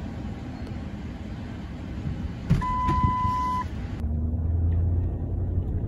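Steady low rumble of a car heard from inside the cabin, with a single steady electronic beep lasting about a second midway. Near the end a louder, steady low drone of the car driving.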